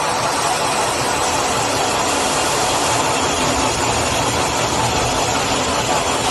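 Multi-station rotary-table CNC drilling and tapping machine running with a steady, even mechanical noise while it machines cast metal parts.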